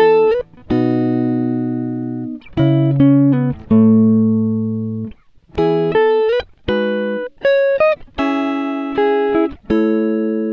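Background music: a guitar playing plucked single notes and chords, each ringing and fading before the next group.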